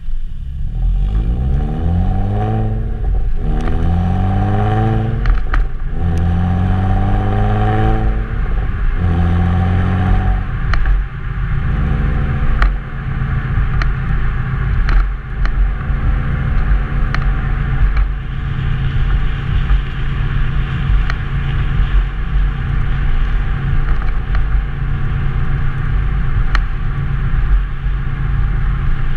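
Exhaust of a 2002 Nissan Maxima's 3.5-litre V6 pulling up through the gears of its 6-speed manual: four rising pulls about two seconds each, broken by shifts, then a steady drone at cruise for the rest.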